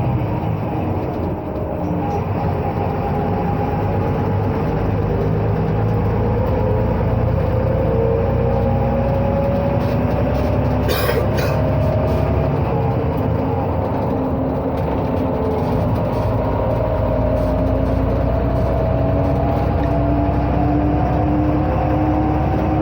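Ikarus 260 bus's diesel engine running while the bus drives, with a whine that rises slowly in pitch as it gathers speed. A short hiss comes about eleven seconds in.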